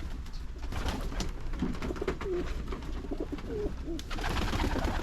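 Pigeons cooing, several short low coos. Near the end there is a burst of hiss.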